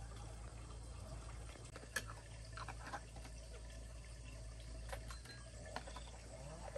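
Liquid poured from a pot into a jar packed with peeled garlic cloves, filling it. A sharp knock about two seconds in, then a few light clicks and taps as plastic screw lids are fitted onto the jars.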